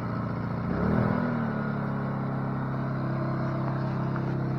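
Two-stroke chainsaw engine running steadily under load as it rips a white oak log lengthwise on a chainsaw mill, its pitch shifting briefly about a second in before settling.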